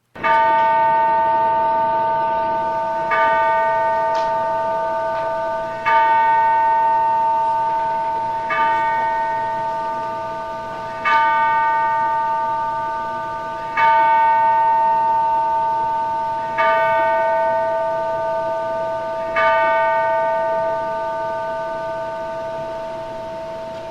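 Church bell tolling eight slow strokes, one about every two and three-quarter seconds, each ringing on and overlapping the next: a memorial toll for the dead.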